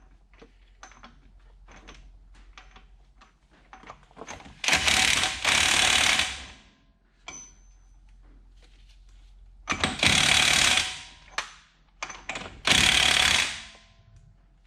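Impact wrench hammering in three bursts, each one to two seconds long, running the front axle nut down on a new wheel hub assembly. Small clicks and knocks of tool handling come between the bursts.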